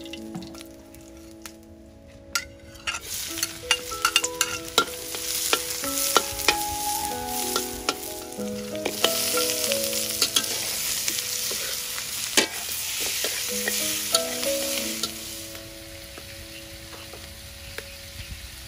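Raw pork ribs with onion and garlic sizzling in a hot steel wok as a metal spatula stirs them, clicking and scraping against the pan. The sizzle builds a few seconds in and is loudest in the middle.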